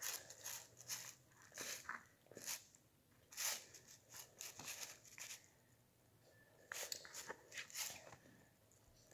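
Eating sounds: a utensil scraping and clicking in a bowl, mixed with food crunching, in irregular short strokes with a lull about six seconds in.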